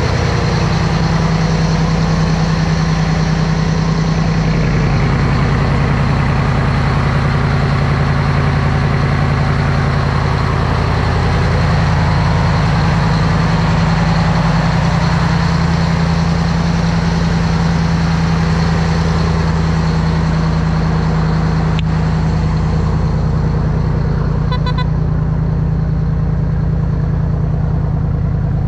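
Engine of a river cargo boat running steadily under way: a constant low drone.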